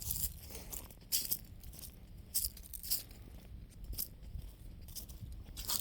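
Footsteps crunching on the ground as someone walks, a short crunch every half second to a second, over a low rumble.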